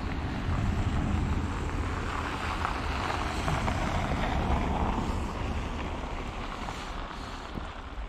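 An SUV driving past on a snow-covered road, its tyres hissing through the slushy snow; the sound swells and then slowly fades as it goes by, with a low rumble of wind on the microphone.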